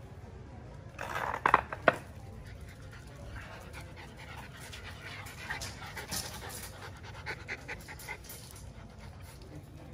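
Miniature Schnauzers panting while they play, with a short, loud burst of three sharp sounds about a second in and scattered light clicks later.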